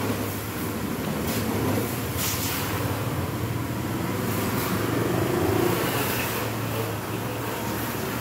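Pressure washer spraying water onto a car body: an even hiss of spray over the steady low hum of the machine running.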